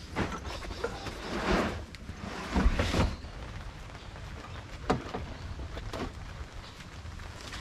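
Camping gear being handled and packed at the open rear doors of a Toyota Troopcarrier: scattered knocks, clunks and rustling, with a heavy thud about three seconds in and sharper clicks later.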